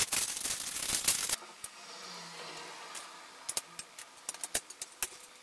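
Metal tubes of an IKEA RIGGA clothes rack being handled and fitted together during assembly: a loud scraping, rustling clatter for about the first second and a half, then a quieter run of light clicks and taps of tube on tube.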